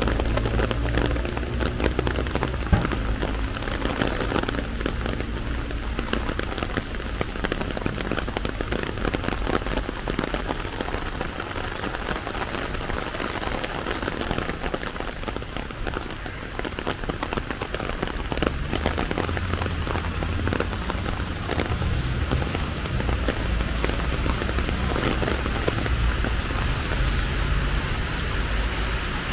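Heavy rain falling steadily, drops tapping densely on a small umbrella overhead and splashing on wet pavement, with a low rumble of road traffic rising and falling underneath.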